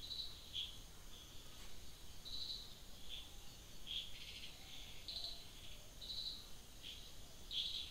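Faint high chirps from small animals calling, about ten short calls repeating irregularly roughly once a second.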